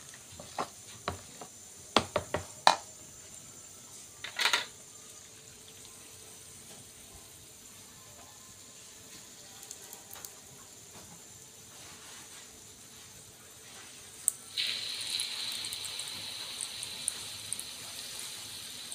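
A few sharp clinks and knocks of utensils against the batter bowl in the first few seconds. About fourteen seconds in, a sudden steady sizzle with crackles starts as the batter-coated kembang goyang mould goes into hot frying oil.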